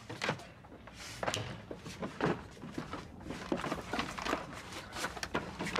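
A person moving about and handling things: irregular rustling, with soft knocks and thuds several times a second.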